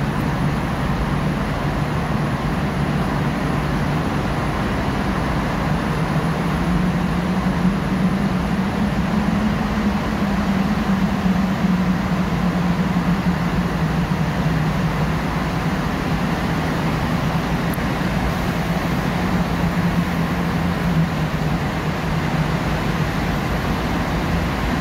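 A car driving through a road tunnel, heard from inside the cabin: steady tyre and road noise under a low engine hum that rises a little about seven seconds in and then holds.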